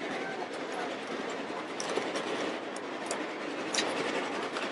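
Excursion train cars rolling on the rails: a steady rumble and hiss with a few sharp clicks from the wheels and track.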